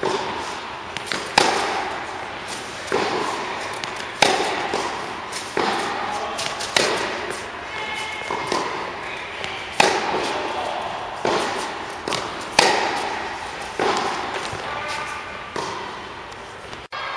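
Tennis ball struck back and forth in a rally on an indoor court: sharp racket hits about every second and a half, each one echoing in the hall.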